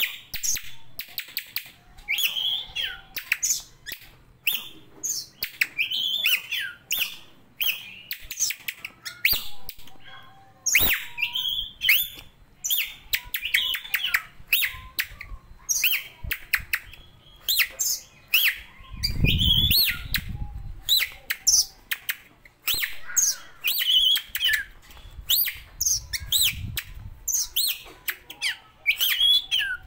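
Caged Oriental magpie-robin (kacer) singing in long varied bouts: loud bending whistles mixed with rapid harsh ticks and rasping notes, phrase after phrase. A brief low rumble comes about two-thirds of the way in.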